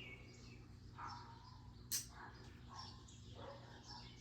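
Quiet background with a steady low hum and a few faint chirps, broken by a single sharp click about two seconds in.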